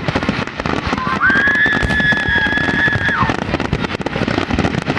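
Fireworks in the closing stretch of a show: rapid, continuous bangs and crackling, with one long high whistle held for about two seconds in the middle.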